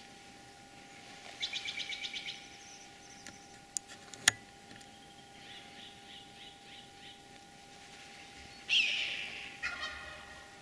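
Wild birds calling. A quick series of about eight high chirps comes about a second and a half in, a fainter run of notes follows in the middle, and a louder falling call with a trill comes near the end. Two sharp clicks sound around four seconds in, the second being the loudest sound.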